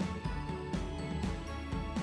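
Background music with held notes over a steady, regular beat.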